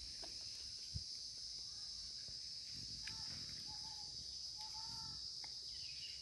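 Steady high-pitched drone of insects, with a few faint short chirping calls about halfway through.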